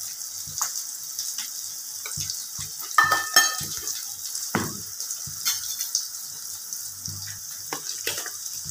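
Oil sizzling steadily as onions fry in a kadai, with a metal spoon scraping and clinking in a stainless steel bowl as chili powder is stirred into tamarind water. A few sharp, ringing clinks of metal on metal come about three seconds in.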